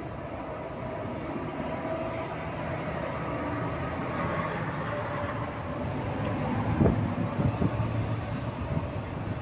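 A motor vehicle running nearby, growing gradually louder, with a cluster of knocks and bumps from about seven seconds in.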